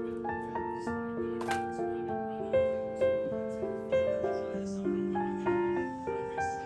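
Background music: a gentle piano-like keyboard melody of clear, evenly paced notes.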